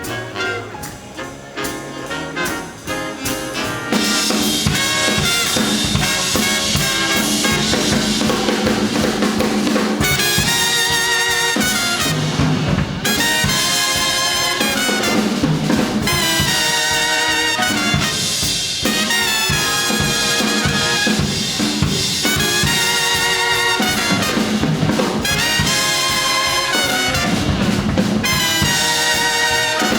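Live big band playing a swing instrumental, with brass section and drum kit. It is quieter for the first few seconds, then the full band comes in loud about four seconds in, with punchy, repeated brass hits over the drums.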